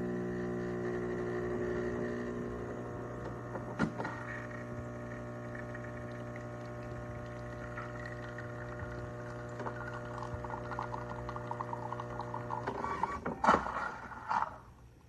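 Miele CM 5310 automatic coffee machine making an espresso shot, with a steady mechanical hum as it works. The hum stops about thirteen seconds in, followed by a brief crackle and a couple of clicks as the first shot of a double finishes.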